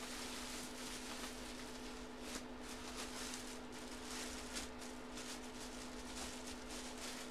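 Plastic bubble wrap crinkling and rustling as hands work it open and pull it away, with faint irregular crackles, over a steady electrical hum.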